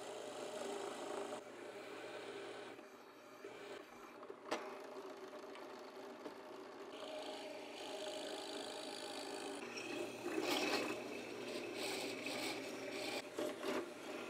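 Drill press running, its bit boring a hole for a half-inch wooden hinge pin through two clamped Brazilian cherry blocks, with a rough rasping of wood chips being cut and lifted out of the hole. There is a single sharp knock about four and a half seconds in.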